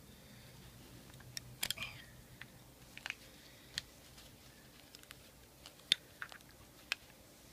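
Hands handling a plastic packaging bag: scattered short clicks and crinkles, the sharpest about six seconds in.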